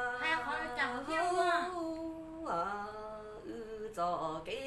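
A woman singing in long held notes that slide up and down in pitch.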